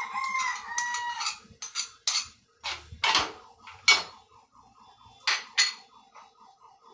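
A rooster crows once for about a second and a half at the start. Then come sharp clinks of a metal spoon and dishes against a metal cooking pot, and near the end a quick run of short clucks, about four a second.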